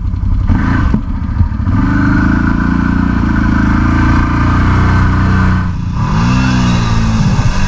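ATV engine running at a steady speed. From about six seconds in, an ATV engine revs up and down in repeated rises and falls.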